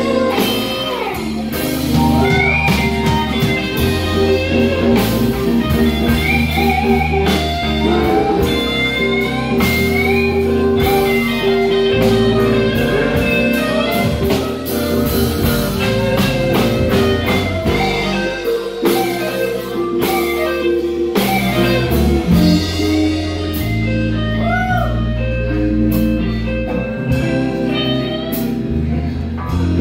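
Live blues band playing: a guitar lead with gliding, bent notes over a steady bass line and drum kit.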